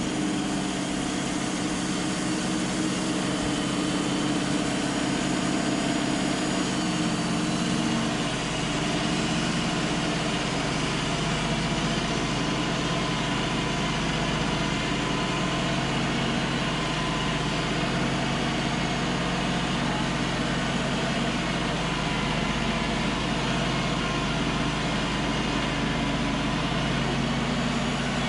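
Wood-Mizer LT35 portable band sawmill running, its engine driving the band blade through a Douglas fir cant. The engine's note holds steady, then changes and becomes rougher about eight seconds in.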